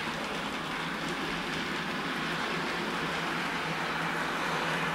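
Model railway train running along the layout's track: a steady noise of its motor and wheels on the rails.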